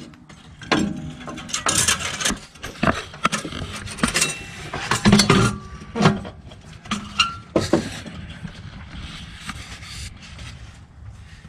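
Irregular metal clinks, knocks and scrapes of exhaust parts and clamp being worked into place by hand, some clinks ringing briefly. They are busiest in the first eight seconds and thin out toward the end.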